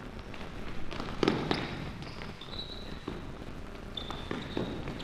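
Game sounds during a youth ball game: a few sharp knocks of a ball being struck or bouncing, the loudest about a second in, and two short high-pitched squeak-like sounds later on.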